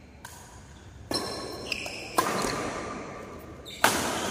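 Badminton rackets striking a shuttlecock in a rally: about four sharp hits roughly a second apart, each echoing in a large hall.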